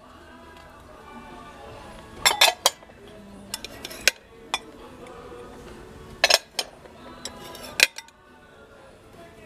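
Bowls clinking against one another as they are taken from the shelf and stacked. There are several sharp clinks in small clusters, over background music.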